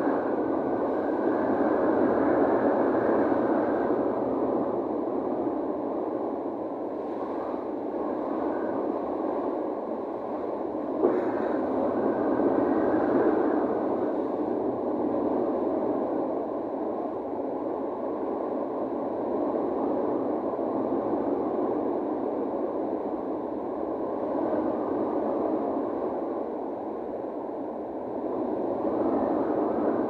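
Wind at sea on a cruise ship's deck: a steady rushing that slowly swells and eases, with one short click about eleven seconds in.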